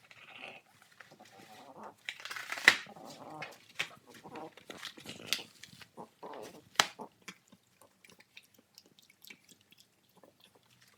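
French bulldog puppy chewing and ripping a cardboard box with its teeth: crackling tears and sharp crunches of cardboard, the loudest snap a little under three seconds in, with short grunts from the dog in between. The last few seconds hold only scattered small chewing clicks.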